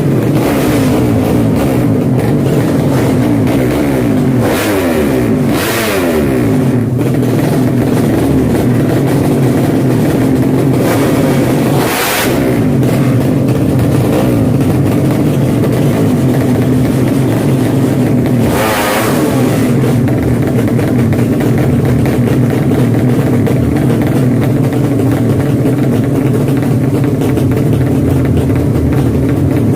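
Drag-racing motorcycle engines running loud, revving up and down in pitch for the first several seconds, then holding a steady drone. Short rushing surges cut through it a few times, the clearest about 12 and 19 seconds in.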